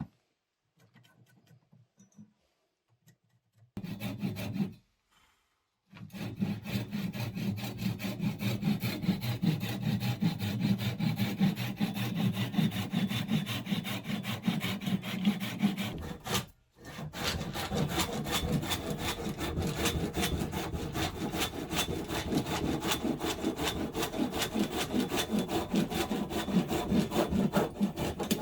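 Hand saw cutting through wood in quick, steady back-and-forth strokes, in two long runs with a short break near the middle.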